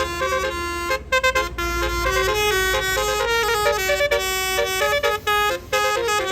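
Basuri telolet horn on a bus playing a multi-note tune: sustained horn notes stepping up and down, with a few short breaks, over a low engine rumble.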